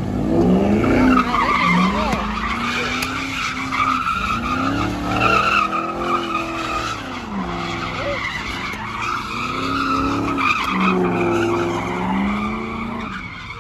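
Car tyres screeching in a long skid while the engine revs rise and fall again and again, as in a car being spun around.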